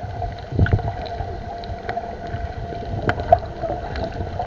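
Underwater sound picked up by a camera submerged in the sea: a steady low rumble of water with a thin constant hum and scattered sharp clicks and crackles.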